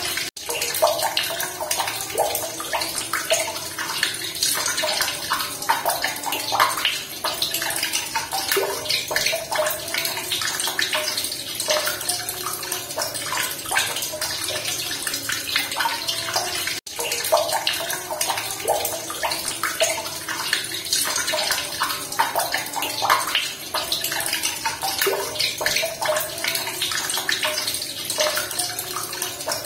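Running water splashing and trickling continuously, a dense bubbly patter with no let-up. Twice it drops out for a split second, once right at the start and once about halfway through.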